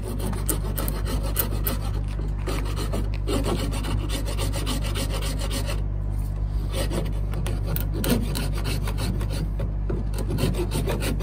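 Flat hand file rasping back and forth over epoxy filler on a Laser dinghy's gunwale, shaving it down flush. The strokes run on with short pauses about six and ten seconds in, over a steady low hum.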